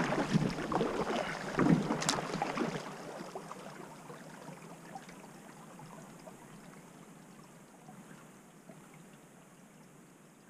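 Kayak paddle strokes splashing and dripping close to a GoPro's microphone for the first few seconds, with a sharp click about two seconds in. Then the paddling stops and only a faint hiss remains as the kayak glides.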